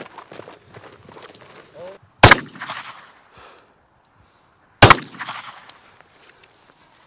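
Faint scattered footsteps, then two semi-automatic pistol shots about two and a half seconds apart, each echoing across open ground.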